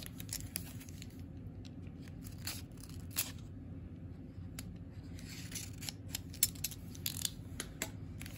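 Snap-off utility knife blade slitting the tape seal of a small cardboard packet: irregular short scratches and clicks as the blade cuts and the packet is handled, a few sharper ones past the middle.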